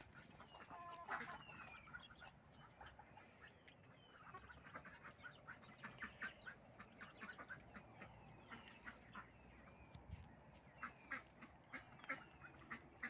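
A flock of white domestic ducks quacking in many short, repeated calls, with chickens calling among them.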